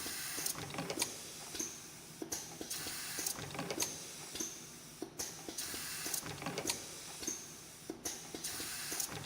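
CNC extension-spring coiling machine running through its forming cycle, making fine 0.18 mm wire into hooked extension springs. Sharp mechanical clicks and a hiss repeat about every three seconds.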